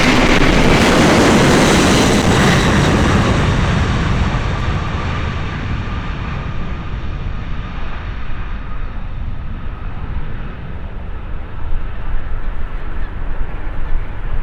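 Jet airliner's engines at takeoff power as it departs, loud at first and then fading over several seconds as the aircraft climbs away, the high part of the sound dying first and leaving a low rumble.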